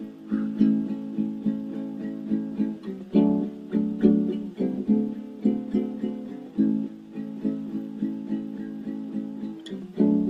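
Music: a solo acoustic guitar playing chords in a steady rhythm, with no singing.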